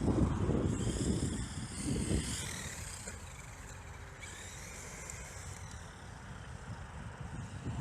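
Traxxas X-Maxx RC monster truck running on pavement, its brushless motor whining up and down in hard throttle bursts over tyre noise. After about three seconds it drops to a quieter, steadier sound.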